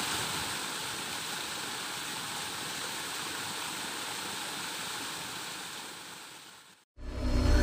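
Paddlewheel pond aerator churning and splashing the water, a steady rushing spray that fades out about six and a half seconds in. Music starts just before the end.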